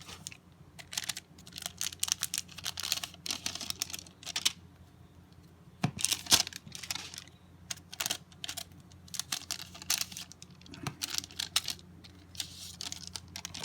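Hands opening a pack of trading cards and handling the cards: wrapper crinkling and card edges clicking in irregular bursts, over a faint steady electrical hum.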